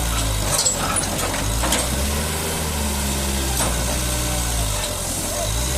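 Mitsubishi BD2e bulldozer's diesel engine running steadily, its note shifting about half a second in and again near the end. A few short metallic knocks come over it.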